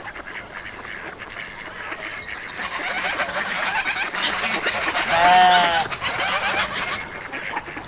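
Farmyard ambience full of busy, overlapping small animal calls, with one cow mooing once, for about a second, about five seconds in.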